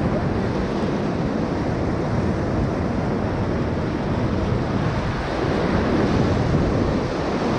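Whitewater rushing steadily around a paddle raft running a rapid, with wind noise on the microphone.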